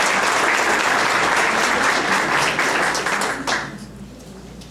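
Applause from many people clapping at once, ending a lecture; it dies away quickly about three and a half seconds in.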